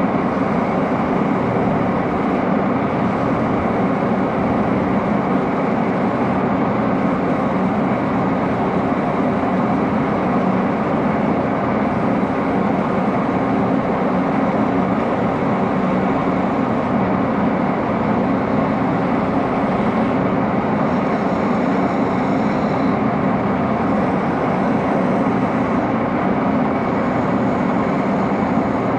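Metal lathe running steadily under power while a handle is machined, a constant mechanical hum with no change in speed. A faint high ringing rises over it for a couple of seconds about three-quarters of the way through.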